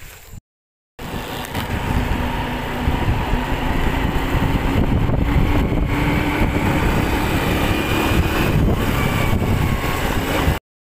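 Riding on a motor scooter: steady wind rush on the microphone over the engine's hum, with a faint tone that creeps slowly higher. It starts after a brief gap of silence about a second in and cuts off just before the end.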